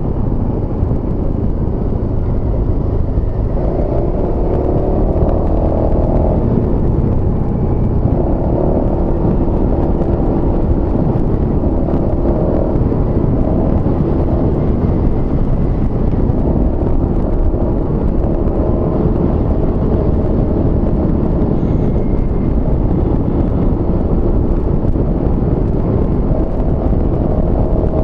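Honda Forza 250 scooter (MF15) under way: steady engine drone mixed with a dense rush of wind and road noise, the engine note shifting up and down a little with speed.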